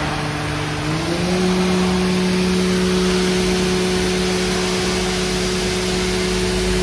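Niigata SPN40 CNC horizontal machining centre running with a steady hum, which glides up in pitch about a second in and then holds at the higher pitch, over a background hiss.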